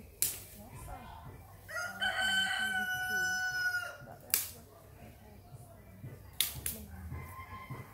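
A rooster crows once, one call of about two seconds that starts about two seconds in and holds mostly on one pitch. A few sharp cracks come before and after it.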